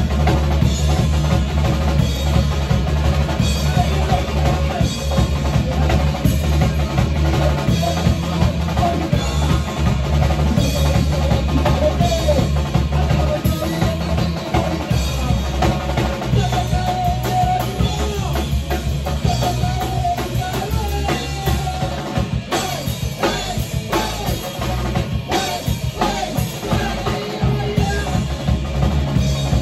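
Rock band playing with electric guitars and a drum kit, the drums driving hard with bass drum and snare.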